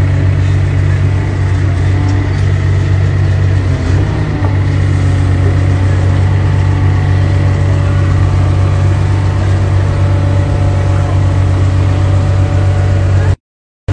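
Excavator's diesel engine running steadily while it holds a coffin on lifting straps over the grave. The sound cuts off suddenly near the end.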